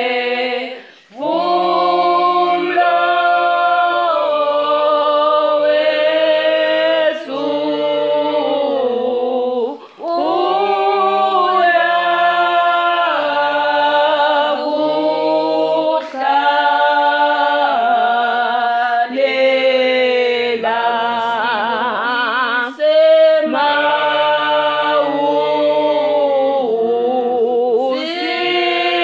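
A women's church choir singing a hymn a cappella, in long held phrases with short breaks between them.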